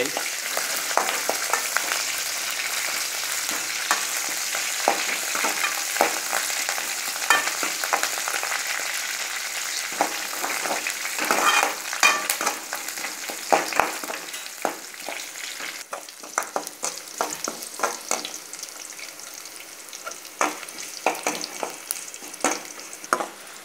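Sliced shallots and curry leaves sizzling in hot oil in a kadai for a sambar tempering, stirred with a metal spatula that clicks and scrapes against the pan. The sizzle eases off in the second half.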